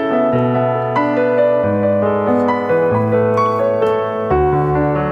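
Background piano music: a slow, gentle piece with its bass note changing about every second and a half.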